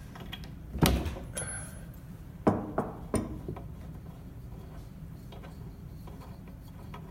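A few sharp metallic knocks and clinks of hand tools being handled, one about a second in and three close together a little later, over a steady low hum.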